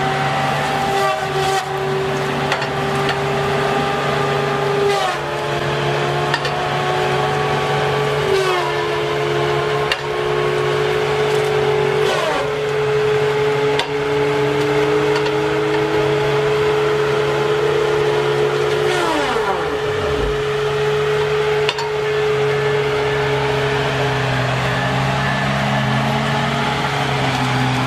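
A machine's motor running steadily with a constant hum. Its pitch drops sharply about four times, the deepest drop near the two-thirds mark, and comes back up each time.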